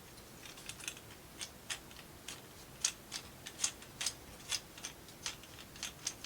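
Light, irregular clicks and taps of thin laser-cut plywood model parts being handled and pressed into place, about two or three a second.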